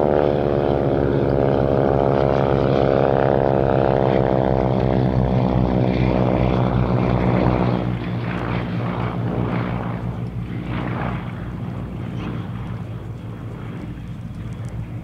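Pratt & Whitney radial-engined warbird propeller aircraft flying past: a loud, steady engine drone that drops off sharply about halfway through and then keeps fading as the aircraft draw away.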